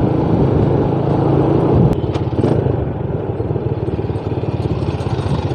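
Motorcycle engine running while riding. About two seconds in, the engine note drops to a quieter, evenly pulsing beat as the rider eases off behind slower traffic.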